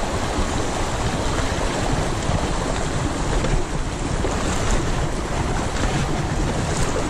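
Fast, shallow river rushing over stones, loud and close, with a steady low rumble under it.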